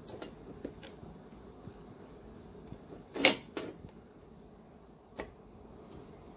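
Snap-ring pliers working a snap ring on the shaft of a hydraulic leveling-jack pump motor: a few small, sharp metallic clicks. The loudest click comes about three seconds in, with a second one just after it.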